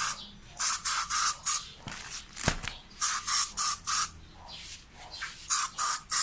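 Disinfectant being sprayed onto delivered parcels: about a dozen short hissing spritzes in quick groups of three or four. There is a single dull knock about two and a half seconds in.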